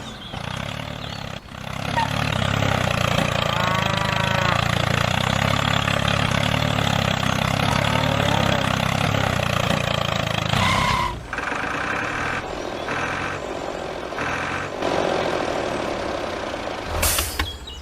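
A small engine running steadily. About eleven seconds in it cuts off sharply, and the rest is quieter and more broken up.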